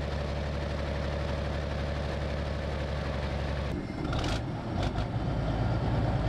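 An armoured vehicle's engine idling steadily with a low, even hum. About four seconds in, the sound turns rougher and a little louder, with a few sharp metallic clicks.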